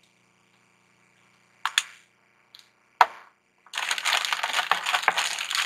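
Two sharp clicks of small items being handled, then from about four seconds in a dense crinkling and rustling of packaging as hands rummage in a box of makeup.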